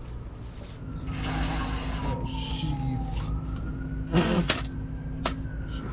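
A siren wailing, its pitch slowly falling, rising and falling again, over a steady low hum, with a sharp knock about four seconds in.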